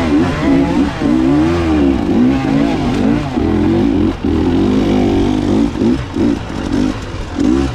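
Dirt bike engine revving up and down as the throttle is worked along a trail, its pitch rising and falling every second or so. Near the end the throttle is blipped a few times in quick succession.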